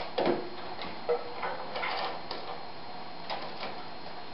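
Clicks and rattles of a PC case's front mesh panel being unclipped and pulled off: a loud cluster of clicks as the two catches are pressed, more clicking and rattling as the panel comes loose, then a couple of light clicks.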